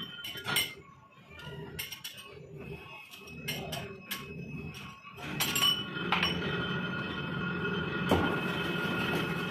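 Steel chuck key clinking and knocking against a four-jaw lathe chuck as it is fitted and turned, several sharp clinks in the first six seconds. Workshop machinery runs in the background with a steady whine and low hum, which grow louder about five and a half seconds in.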